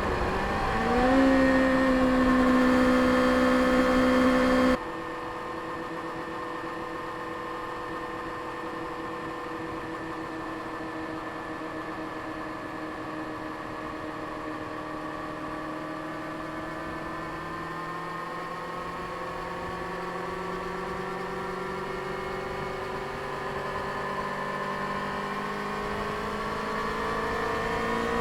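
Stock 2024 Kawasaki Ninja ZX-6R's 636 cc inline-four running through its stock exhaust. The revs dip at the start and then hold steady. About five seconds in, the sound drops abruptly in level, and the engine runs on at low, steady revs that sag a little and then climb slowly toward the end.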